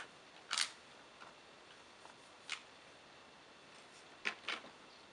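Yamaha YZ 125 two-stroke single being kick-started: four short rasping strokes of the kick-starter turning the engine over, one about half a second in, one mid-way and two in quick succession near the end, without the engine catching.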